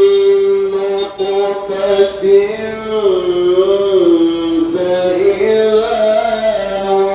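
A man chanting Quran recitation in the drawn-out melodic style, holding long notes that slide slowly down and back up.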